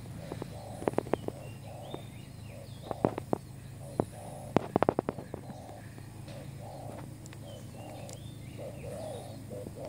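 Spotted dove cooing, a steady run of short, low coos. Sharp clicks are heard throughout, bunched together about five seconds in.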